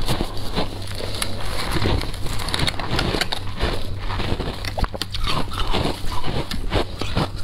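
Chewing and crunching a mouthful of shaved ice, a dense run of crackles and clicks with wet mouth sounds. In the second half a gloved hand handles a block of compressed shaved ice and dips it into a bowl of juice, adding a few short squeaks.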